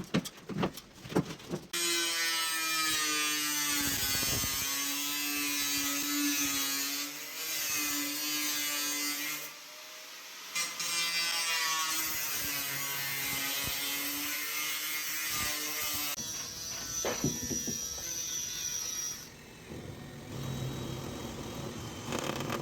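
A handheld electric power tool running under load in long stretches, its pitch wavering, with a short pause about ten seconds in.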